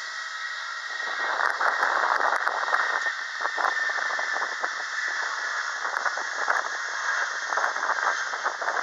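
Jet airliner taking off at a distance: engines at take-off power giving a steady roar with a crackling edge, which swells about a second in.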